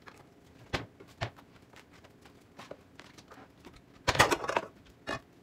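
Kitchen handling noise: a couple of sharp knocks and some light taps, then a louder clatter about four seconds in and one more knock, as a cutting board and a skillet are set out on the counter and stove.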